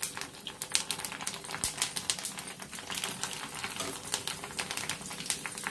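Pani puri chips deep-frying in hot oil: the oil sizzles with quick, irregular crackles as the puris puff up into balls.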